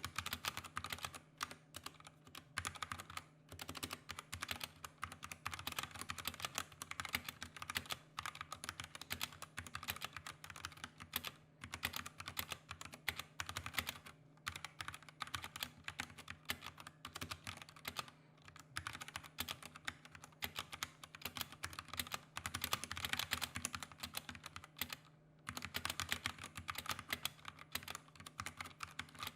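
Typing sound test on a Drop ENTR mechanical keyboard with Gateron Yellow linear switches and double-shot PBT keycaps: a steady run of key clacks, broken by short pauses about 14, 18 and 25 seconds in. Some stabilized keys rattle a little, which the reviewer puts down to the stock stabilizers.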